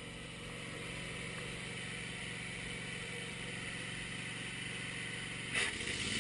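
Wood-Mizer LT15 bandsaw mill's engine idling steadily. Near the end a short sharp noise, after which the engine note changes and grows a little louder.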